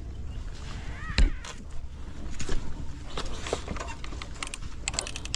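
A single loud knock about a second in, then scattered clicks and scrapes over a low steady rumble, as a stopped dirt bike is handled on a rocky trail.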